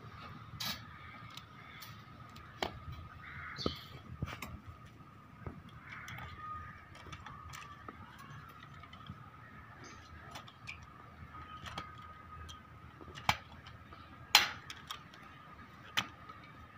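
Hand pop-rivet gun being squeezed to fix wire mesh to a steel frame: scattered sharp clicks and snaps as the handles work and rivet stems break off, the loudest about fourteen seconds in. A faint steady high tone runs underneath.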